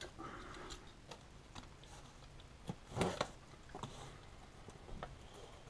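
Faint, scattered ticks and taps of a cardboard shipping box being handled and opened, with one sharper knock about three seconds in.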